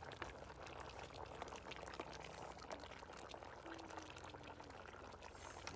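Pot of fish-head curry simmering on low heat over charcoal: a faint, steady bubbling with many small pops.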